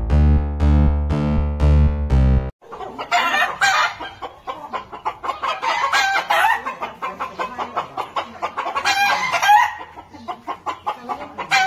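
A short electronic keyboard tune with repeated notes, cut off abruptly about two and a half seconds in. It is followed by chickens clucking and calling in short, wavering bursts with pauses between them.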